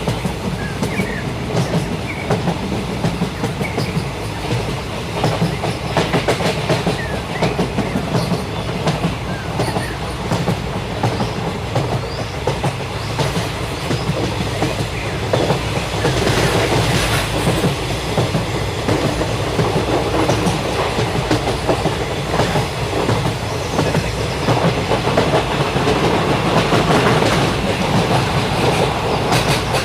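Train running on the rails: a steady, loud rattling rumble of wheels and carriages, dense with quick clicks.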